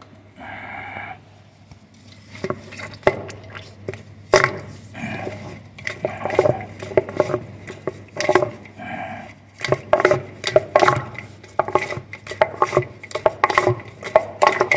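Irregular clattering knocks as a high-pressure drain-jetting hose works inside a floor drain pipe, over a steady low hum.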